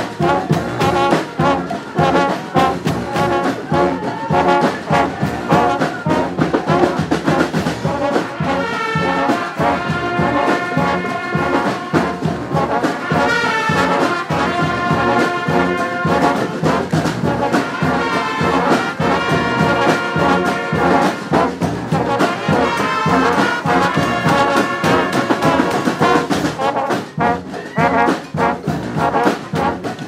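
Massed street brass bands playing together: sousaphones, trumpets, trombones and horns over a steady beat of drums and crash cymbals, with long held brass chords in the middle stretch.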